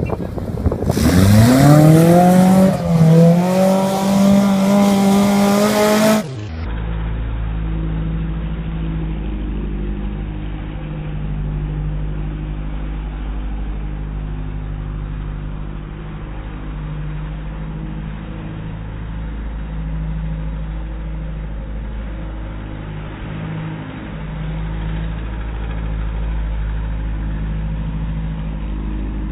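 Willys jeep engine revving up hard and held at high revs for about five seconds, then an abrupt cut to a steadier, lower engine running over a deep rumble as the jeep drives on loose sand, rising a little near the end as it spins its wheels.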